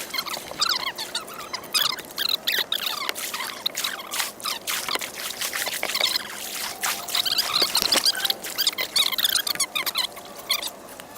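River water splashing and gurgling in quick, uneven spatters.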